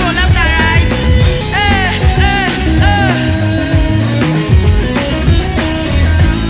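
Live band playing an upbeat groove: bass guitar and drum kit, with a melody line that bends up and down in pitch a few times in the first half.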